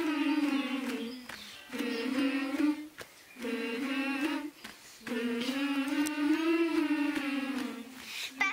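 Children's voices singing together, held notes in four phrases with short pauses for breath between them, the last and longest running about three seconds.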